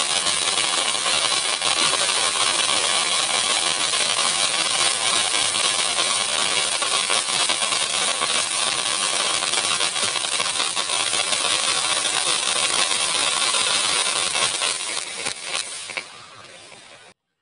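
Fountain firework (a pookutti, or flower pot) spraying sparks with a steady, loud hiss, dying down near the end as it burns out.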